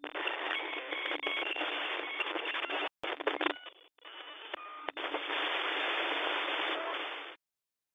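Radio-static sound effect: a steady, narrow-band hiss like a detuned radio or TV, with a few short electronic beeps and chirps. It cuts out briefly about three and four seconds in and stops abruptly near the end.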